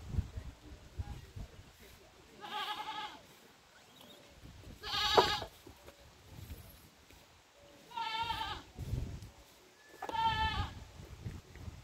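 An animal bleating four times, short quavering calls roughly two to three seconds apart.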